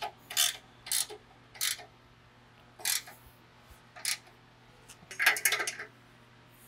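Ratchet wrench clicking as it tightens the wedge nut of a hitch-mounted tire carrier in the tow hitch receiver. There are single clicks about a second apart, then a quick run of clicks near the end.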